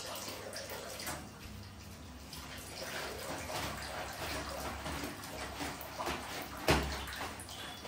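Water running and splashing in an uneven stream, with one louder thump near the end.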